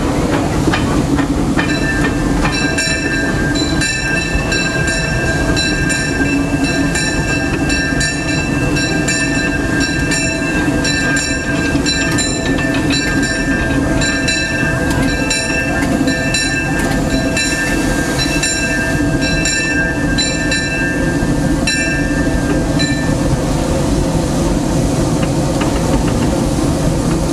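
The bell of the C.K. Holliday, a 4-4-0 steam locomotive, ringing over and over from about a second and a half in until a few seconds before the end, with roughly two strikes a second. Under it runs the locomotive's steady running rumble, heard from the cab.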